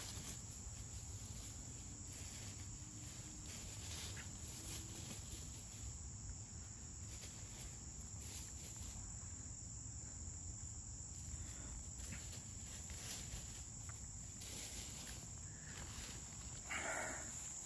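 Insects trilling steadily in a high, unbroken tone, with scattered faint rustles in dry leaf litter where the hens are scratching and walking. A short louder sound comes near the end.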